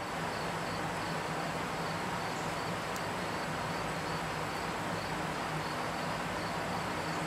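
Outdoor insect chorus: crickets chirping steadily in an even, quick rhythm of about three chirps a second, over a faint steady low hum.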